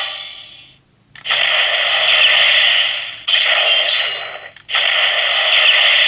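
Gabutyra De Carnival toy's speaker, its singing tune fading out, then a harsh, hissing, static-like sound effect played three times, each started by a sharp click; the last one runs about three seconds.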